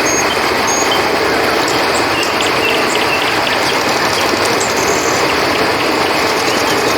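River water rushing steadily, with short high cricket chirps repeating every second or so over it.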